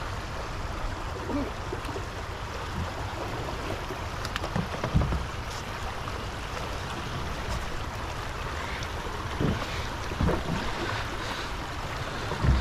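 Steady rush of flowing river water around a canoe, with a few dull low thumps, the loudest about five seconds in.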